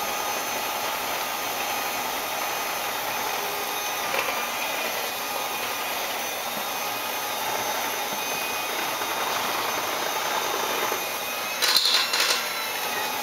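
Electric hand mixer running steadily as it mixes muffin batter, with a few clattering knocks near the end, like the beaters hitting the bowl.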